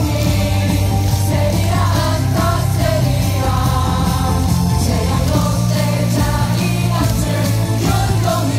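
Loud baseball cheer song on the stadium sound system, a rock-style beat with a stadium crowd singing along.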